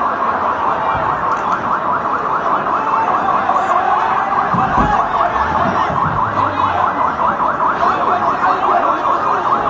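Ambulance siren sounding a rapid, steady warble, on and on without a break.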